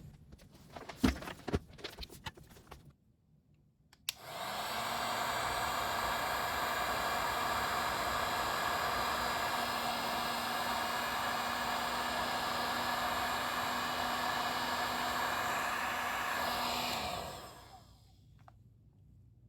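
A few light handling knocks, then a heat gun switched on with a click about four seconds in, blowing steadily with a fan hum for about thirteen seconds before it is switched off and runs down. It is shrinking heat-shrink tubing over the cable at an XLR connector.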